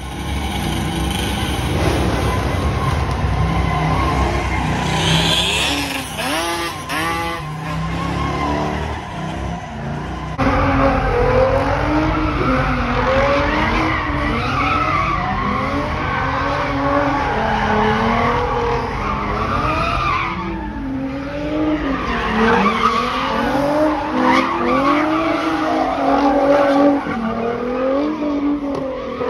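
Cars doing donuts: tyres squealing on pavement while the engines rev up and down over and over. The sound changes abruptly about ten and twenty seconds in.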